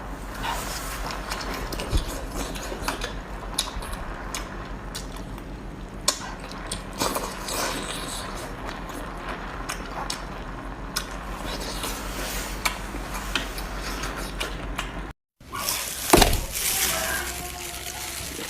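Close-up seafood eating sounds: cutlery and dishes clicking and clinking, with wet, squelchy handling and eating noises. A brief dropout to silence comes near the end, and louder wet sounds follow it.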